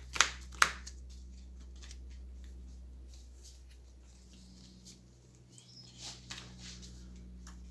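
Hero Realms playing cards handled on a table: two sharp card snaps in the first second, then a few soft rustles and ticks around six seconds in as a hand of cards is picked up and fanned, over a steady low hum.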